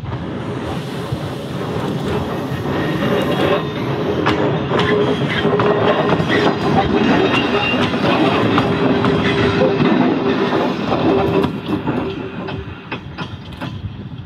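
Tulloch DRC-class diesel railcar passing close by, its diesel engine running with a steady hum. Its wheels click over the rail joints. The sound builds to its loudest about halfway through and fades away near the end as the car recedes.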